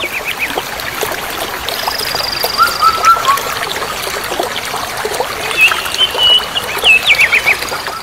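Water rushing over a low, wide cascade, a steady hiss, with birds chirping over it: short curved calls about two and a half seconds in, a high trill before that, and a run of quick chirps near the end.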